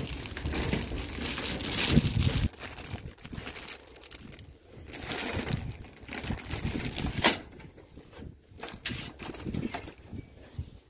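A clear plastic zip-top bag crinkling as it is handled and turned over, with a sharp click a little past seven seconds in.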